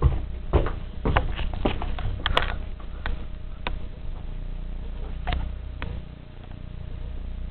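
Irregular light clicks and knocks, many close together in the first three seconds and only a few after, over a steady low hum.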